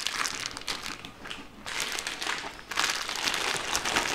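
Plastic meat packaging bag crinkling and rustling as a large cut of beef is lifted out of it. The crinkling eases off about a second and a half in and picks up again near three seconds.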